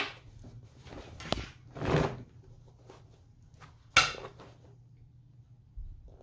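A denim jacket being handled and spread out on a table: fabric rustling and swishing, a sharp click a little over a second in, and a louder sudden knock about four seconds in.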